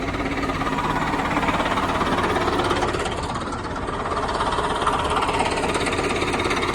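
Engine of an old earthmoving machine, a "920 or 930", running steadily with a fast, even clatter.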